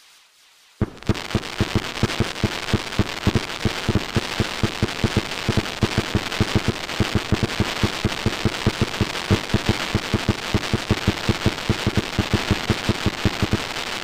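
Fireworks going off in a rapid barrage: quick, evenly spaced bangs, about four or five a second, over a steady crackle. It starts suddenly about a second in.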